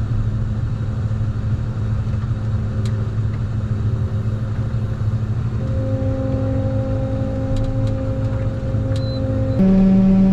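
Farm machine's engine running steadily. A few light clicks come near the end, and just before the end the sound steps up suddenly louder with a strong steady hum.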